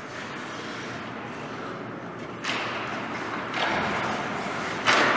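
Ice hockey play in an echoing rink: skates and sticks on the ice, with sudden knocks about two and a half and three and a half seconds in and a loud hit near the end.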